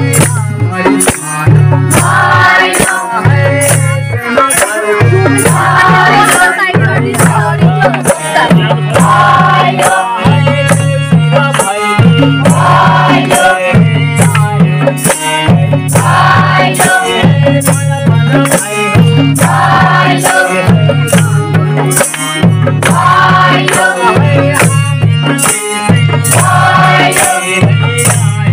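A group singing a Nepali folk song in chorus, with a madal hand drum beating a steady rhythm and hand clapping. The sung phrases repeat every couple of seconds over the drum beat.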